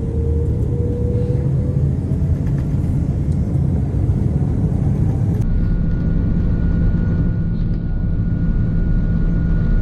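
Cabin noise from an Airbus A330-300's Rolls-Royce Trent 700 engines running at high power during takeoff: a loud, steady low rumble. About halfway through, the sound changes abruptly, with the hiss duller and a steady high whine appearing.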